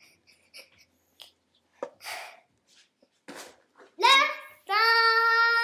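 A young child's wordless vocalizing: small soft noises and breaths, a loud sliding vocal cry about four seconds in, then a steady held high note for about a second near the end.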